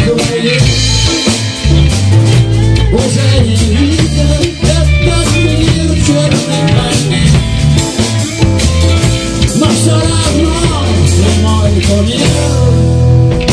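A song played by a band: a voice singing over drums, bass and guitar, with a steady beat.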